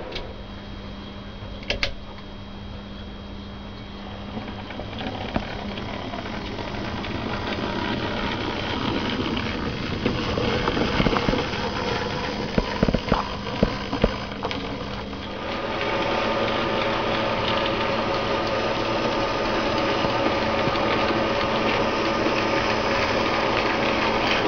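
OO gauge model of an SE&CR P-Class tank locomotive running along the layout track, its ready-to-run chassis motor and gears whirring. There is a run of sharp clicks from the wheels over rail joints and pointwork near the middle. The whirring grows louder and steadier about two-thirds of the way through.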